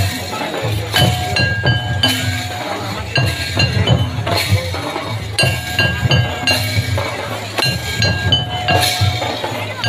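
Santali dance music: a low, dense drum beat under a short phrase of high, bright metallic pings that repeats every few seconds.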